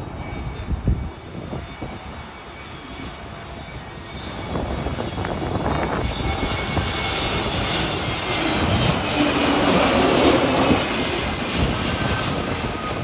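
Vistara Airbus A320-family twin-jet airliner on landing approach with its gear down. Its engine noise builds from about four seconds in to a peak a few seconds before the end as it passes overhead, with a high whine over the rumble.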